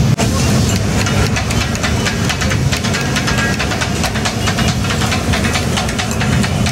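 Katakat cooking on a hot iron griddle: metal blades clatter rapidly and irregularly against the tawa over sizzling, with a steady low hum beneath.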